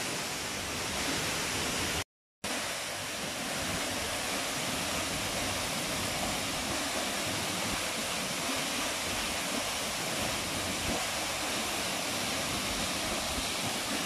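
Tall waterfall plunging into a pool: a steady, even rush of falling water, cut off by a brief silent gap about two seconds in.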